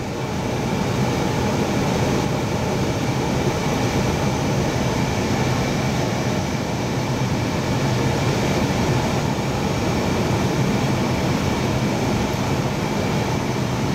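Steady flight-deck noise of an Airbus A320 on final approach: the rush of air over the airframe and the hum of the engines and cockpit ventilation, even and unbroken.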